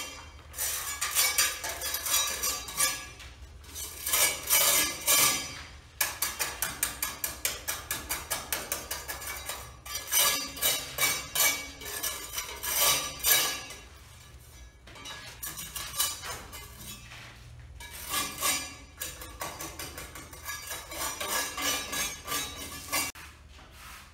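Steel hand trowel scraping a bare concrete floor clean along the foot of a wall, in runs of quick short strokes, about four or five a second, with short pauses between the runs.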